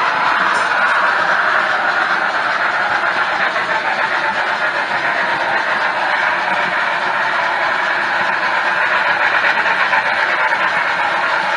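Steady rolling noise of an HO scale model freight train moving along the track, heard close up from one of its hopper cars.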